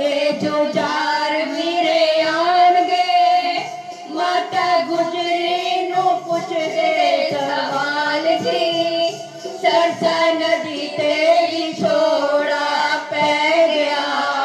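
A group of girls singing a Sikh devotional song (kirtan) together in long held, gliding notes, with instrumental accompaniment. It is heard through a television's speaker.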